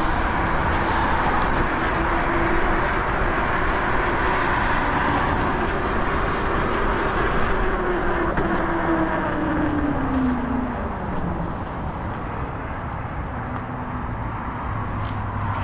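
Riding noise from an e-bike in motion: wind on the microphone and tyre rumble. Under it is a whine from the Bafang G62 hub motor that slides down in pitch around the middle as the bike slows.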